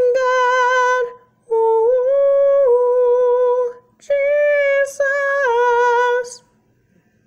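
A woman singing unaccompanied, drawing out the song's closing words in three long held notes with small steps in pitch; her voice stops about six seconds in, ending the song.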